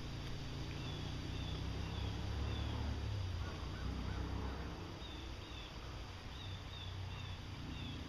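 Ducks calling faintly over a low rumble, with short high chirps repeating several times.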